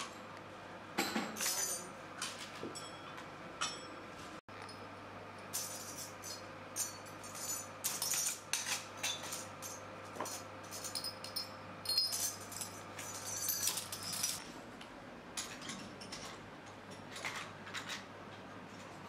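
Metal shock-absorber parts clinking and jingling: chrome rings and washers knocked together and tapped with hand tools as they are handled and fitted, in quick irregular clinks over a steady low hum.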